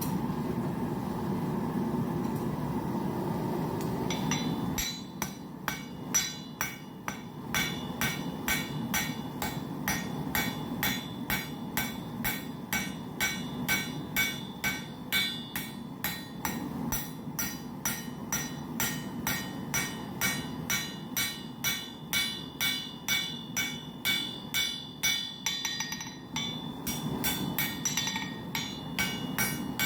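A steady rushing noise, then from about five seconds in a blacksmith's hammer striking hot square steel bar on an anvil in an even run of blows, a little over two a second, each with a bright metallic ring.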